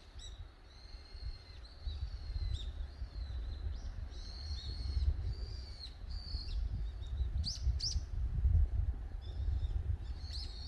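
A bird singing short, high whistled phrases over and over, with a couple of quick rising notes near the middle, over a steady low rumble.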